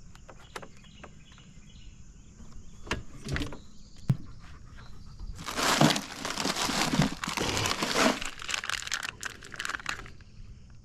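Rustling and crinkling with scattered clicks and knocks, a dense spell of it starting about halfway through and stopping near the end.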